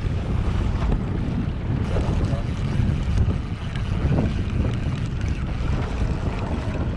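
Wind buffeting the microphone over the steady noise of a boat under way on open sea.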